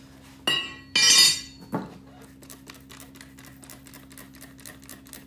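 Hand trigger spray bottle of soapy water squirted three times in quick succession, the middle squirt the longest and loudest, lubricating a tire and rim before mounting. A fast steady ticking and a low hum run behind.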